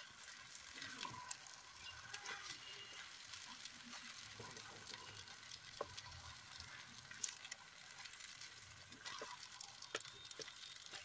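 Wooden spatula stirring and turning par-cooked basmati rice in a steel kadai over a faint sizzle, with scattered scrapes and taps against the pan. The rice is being mixed into the fried vegetables and masala.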